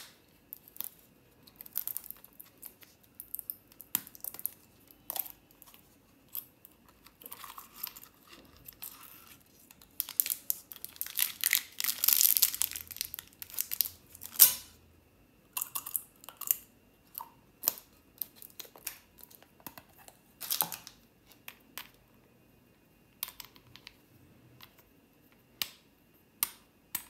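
Plastic candy packaging handled up close: a shrink wrapper crinkling and tearing, with a long dense stretch of crinkling in the middle, and scattered clicks and snaps from a hard plastic candy container and small capsule being opened.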